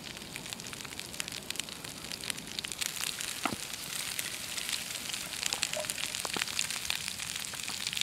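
Mushrooms sizzling in a frying pan over a wood campfire, with the fire crackling: a steady hiss full of sharp pops and ticks.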